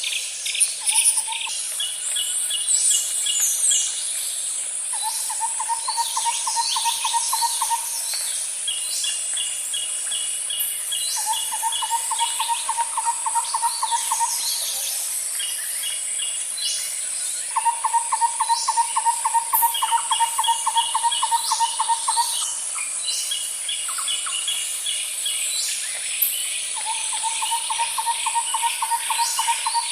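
Nature soundscape of birds and insects: a steady high insect drone, with trains of quick high chirps and a lower rapid trill, two to four seconds long, that repeats every few seconds.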